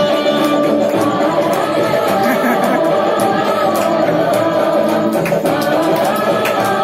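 Hindu devotional song (bhajan) playing: singing over instrumental music with a steady percussion beat.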